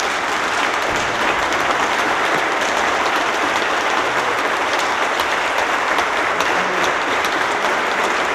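Assembly members applauding steadily: the dense, even clatter of many hands clapping, holding at one level throughout.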